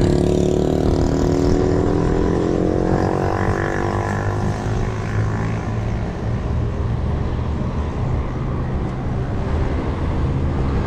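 A motor vehicle engine in passing traffic speeds up, its pitch rising slowly over the first five or six seconds, over steady wind and road rumble from the moving bicycle.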